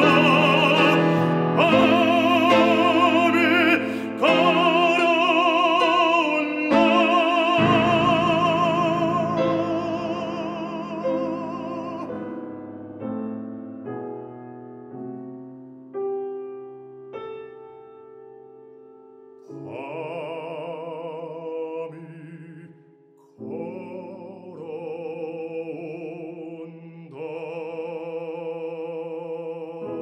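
Baritone singing an art song with wide vibrato, with piano accompaniment. About twelve seconds in the voice stops and the piano plays softer notes alone. The baritone comes back in around twenty seconds.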